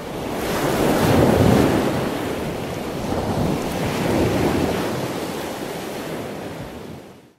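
Ocean surf washing in, swelling twice and fading away near the end.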